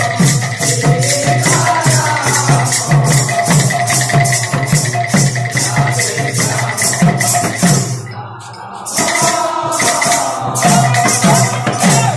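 Kirtan devotional music: a barrel drum and clashing metal hand cymbals keep a fast, steady beat under group singing. The music breaks off briefly about eight seconds in, then resumes.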